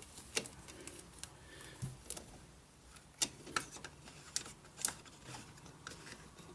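Irregular light clicks and taps of small plastic parts and wiring being handled, spaced unevenly with short gaps between them.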